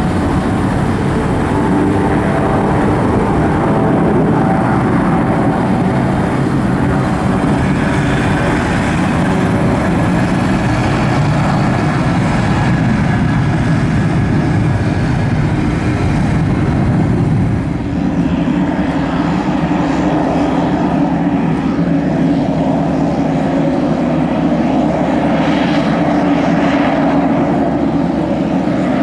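UH-60M Black Hawk helicopter's turbine engines running steadily on the ramp during start-up. About 18 s in the sound changes suddenly, and a single-engine turboprop airplane taxiing past, a Pilatus PC-12, joins in with its engine and propeller.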